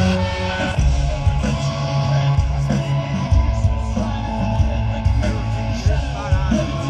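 Live rock band playing loud through a festival stage PA: distorted guitar over bass and a heavy, pulsing kick-drum rhythm.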